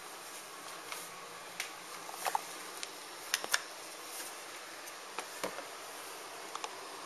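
Sharp KC-850T air purifier fan running at its maximum speed, a steady rushing hiss of air, with scattered light clicks and knocks from handling things near the microphone, the sharpest a few in the middle.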